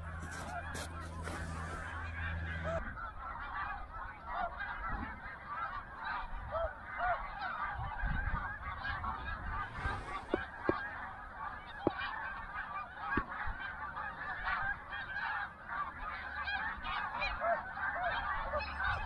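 A large flock of snow geese calling, many high, yelping honks overlapping into a continuous chatter.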